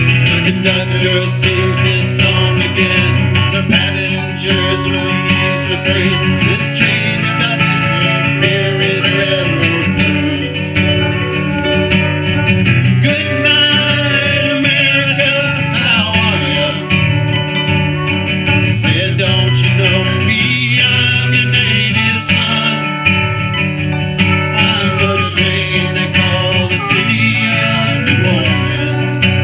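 A small band playing a song live: a strummed acoustic guitar and an acoustic bass guitar, with a man singing.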